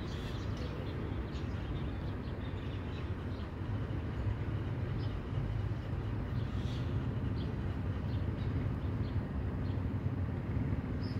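Steady low rumble of distant road traffic, with faint short high ticks scattered through it.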